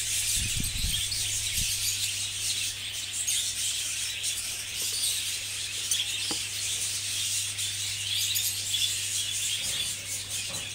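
A flock of budgerigars chattering and chirping continuously in the aviary, a dense high-pitched din, over a steady low hum. A few low knocks sound in the first two seconds.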